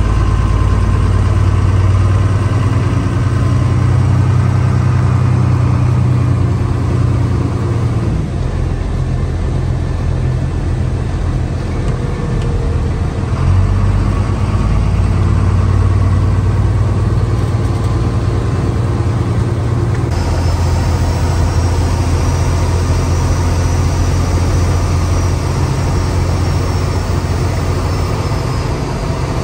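12-valve Cummins diesel in a 1970 Ford F250 running under the load of a towed trailer, heard from inside the cab as a loud, low drone. Its pitch shifts a few times as the truck drives on.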